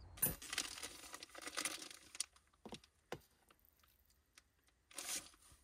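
Crinkling and rustling of a cup ramen container and its wrapping being handled, in short bursts with a few light clicks and taps between them.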